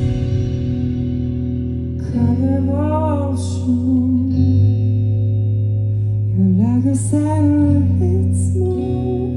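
Live rock band playing a slow passage: ringing guitar chords over steady low notes, with a man singing two phrases at the microphone, the first about two seconds in and the second past six seconds.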